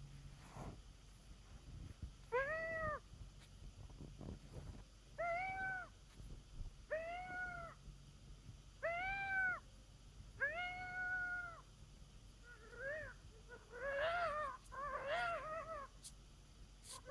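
Triple-reed mouth diaphragm coyote howler call blown in five separate howls, each rising in pitch, holding and falling away, the fifth held longest. Near the end comes a quicker run of short, wavering yips.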